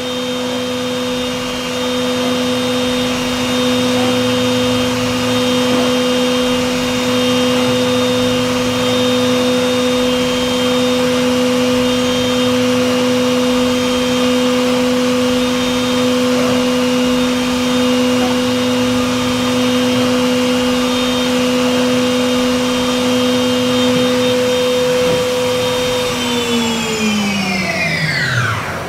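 Yama Seiki AV-1060 vertical machining center's direct-drive spindle running steadily at its maximum 15,000 RPM, a constant whine. Near the end it spins down and the pitch falls.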